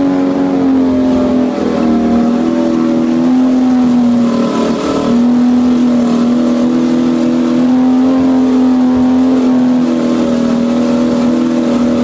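1958 Mercury Mark 78 six-cylinder two-stroke outboard running steadily in a water test barrel on its first test run after restoration. Its speed sags briefly about four to five seconds in, then holds steady again.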